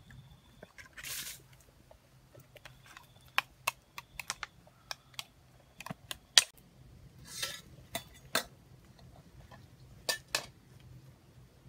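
Plastic bowls, bottles and metal cooking utensils being handled and set down: scattered short clicks and knocks, with a couple of brief scrapes.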